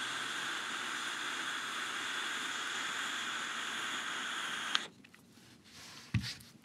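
Dotmod dotAIO Lite pod vape being drawn on slowly: a steady hissing rush of air through the atomizer that stops abruptly about five seconds in. Even on a gentle draw the airflow stays noisy, which the reviewer puts down to the tank.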